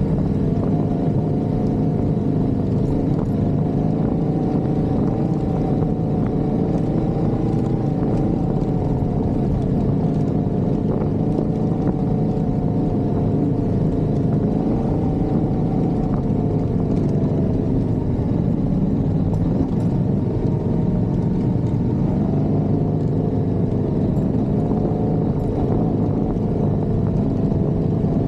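Yamaha Ténéré 700's parallel-twin engine running steadily under load on a steep climb, its pitch rising and falling a little with the throttle.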